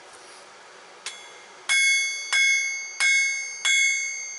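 Blacksmith's hammer striking steel from an old file on an anvil: a light tap about a second in, then four heavy blows about two-thirds of a second apart, each leaving the anvil ringing with a bright tone that dies away before the next.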